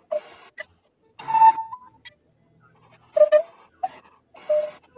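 Tony Dixon alto whistle in A played in a few short phrases of clear, breathy notes, with brief silent gaps between the phrases.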